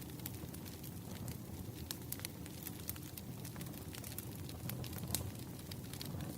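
Wood fire crackling: irregular sharp pops and snaps over a low, steady rumble of the burning logs.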